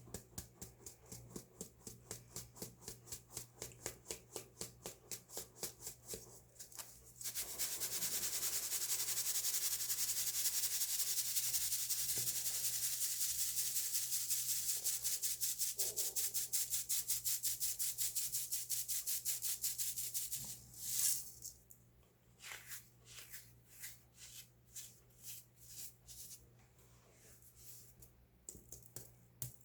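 Baking soda being crunched and crumbled: quick, evenly spaced crunches for the first several seconds, then a continuous grinding crumble for about thirteen seconds, one louder crunch, and sparser crunches near the end.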